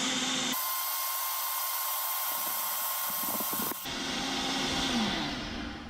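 Electric blender motor running steadily as it blends a thick mixture with chopped banana, egg and cake, then slowing and stopping near the end.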